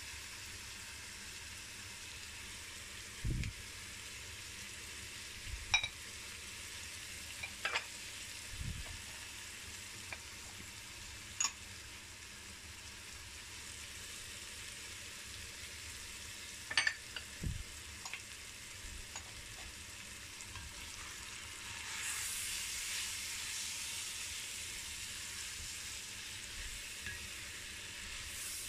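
Smoked pork and onion frying in an enamelled cast-iron pot: a soft, steady sizzle with scattered sharp taps of spoons on the pot and a few dull knocks. Near the end the sizzle grows louder as the wooden spoon stirs the meat through the spices.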